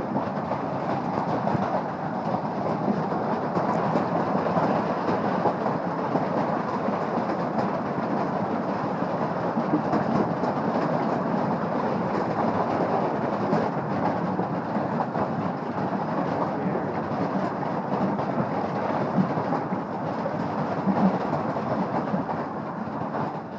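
Large hailstones pelting down without let-up, a dense, continuous clatter of countless stones striking the roof and the shed. It eases off in the last second.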